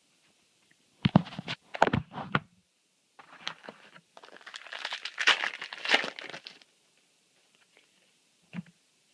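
A few sharp handling knocks, then a foil booster-pack wrapper crinkling and tearing open for about three seconds.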